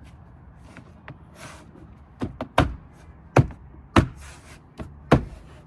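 About six sharp knocks over a few seconds, the BMW X1 door trim panel being struck to seat its clips.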